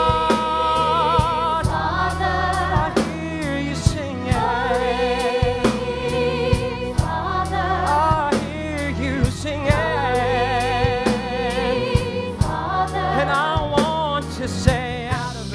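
Music from a stage musical: a male soloist sings long held notes with vibrato, backed by a choir and a band with a steady bass and drum hits.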